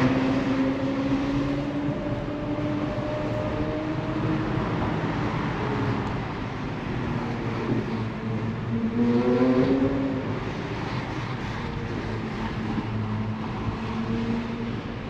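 Car engine running, its pitch easing slowly down, then rising in a short rev about nine seconds in before settling back to a steady drone.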